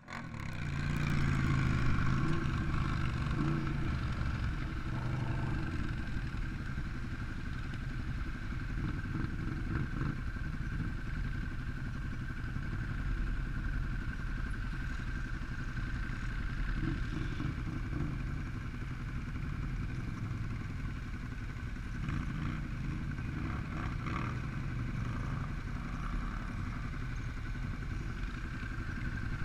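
ATV (quad bike) engines running steadily.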